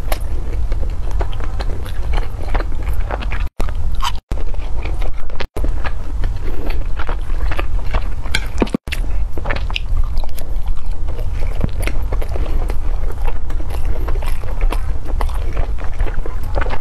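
Close-miked chewing of soft, meat-filled steamed dumplings (shao mai): wet mouth sounds, lip smacks and soft clicks, broken four times by a sudden brief dropout to silence.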